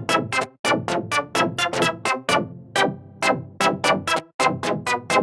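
Xfer Serum software synthesizer playing one of its synth presets: a melodic run of short notes that strike and fade quickly, about four notes a second.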